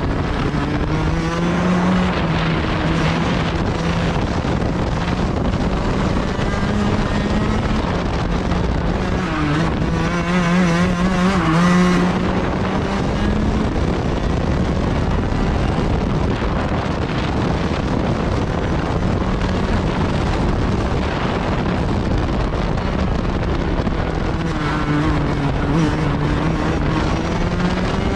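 Racing go-kart engine heard onboard at speed. Its pitch climbs along the straights and drops back into the corners, reaching its highest and loudest about twelve seconds in.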